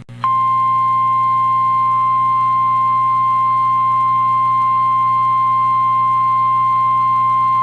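NOAA Weather Radio warning alarm tone: a single steady 1050 Hz tone, starting about a quarter second in and held unchanged, over a low steady hum from the radio reception. The tone signals that a warning is about to be broadcast.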